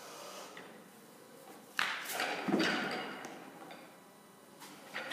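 A 60 kg barbell clean: two sharp knocks about half a second apart, a little under two seconds in, as the bar and its plates clatter and the lifter's feet land in the catch. Each knock fades over about a second.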